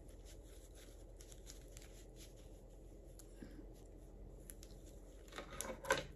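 Faint rustling and crinkling of a paper tissue being rubbed across the lips to wipe off lip gloss, with a louder crackle of the tissue near the end.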